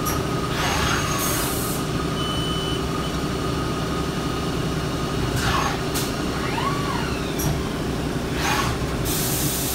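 Haas ST-20 CNC lathe running: a steady machine hum, with servo whines that rise and fall several times as the tool turret moves. Short bursts of hiss come and go, the loudest about a second in and near the end.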